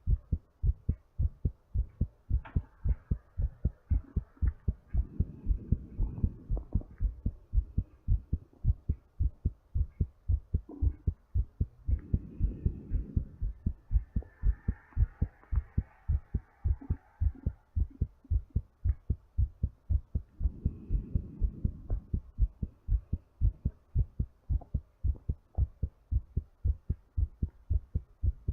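A person's heartbeat picked up close to the chest, beating steadily during recovery from exercise. Slow breaths swell through it a few times, several seconds apart.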